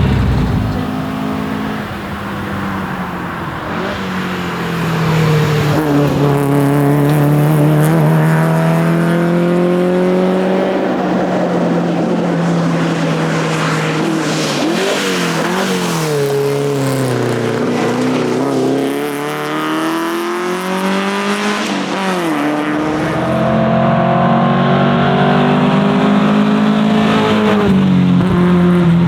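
1961 Volvo 122S four-cylinder engine driven hard on a rally stage, its pitch climbing through the revs and dropping at each gear change. The revs sink well down about two-thirds of the way through, then the car pulls hard again.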